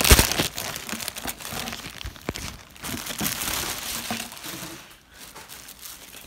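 Thin plastic garment bag crinkling and rustling as it is handled, loudest in the first second and quieter toward the end.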